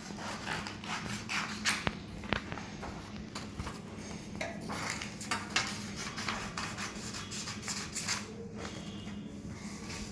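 Scissors snipping through paper, cutting out a paper bird: a run of short, irregular snips with the paper rustling between them, over a faint steady low hum.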